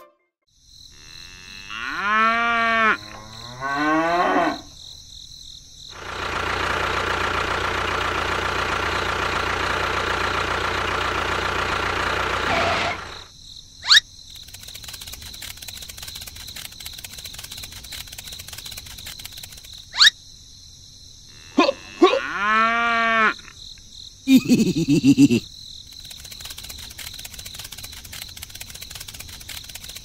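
Cow mooing in several long calls, two near the start and more about two-thirds of the way through. Between them comes a steady, noisy running sound lasting about seven seconds, and a few sharp clicks.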